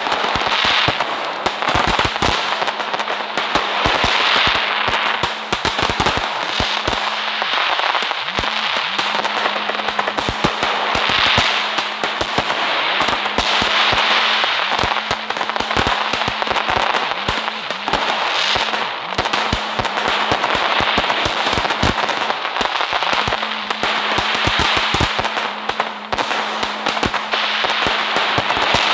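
Fireworks going off without a break: a dense crackling hiss full of sharp pops and bangs.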